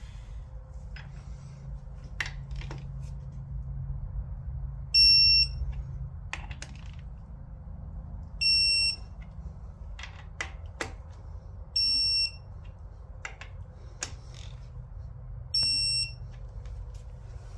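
An electronic beeper sounds four times, each a high half-second beep, about three and a half seconds apart. Scattered clicks and knocks come between the beeps.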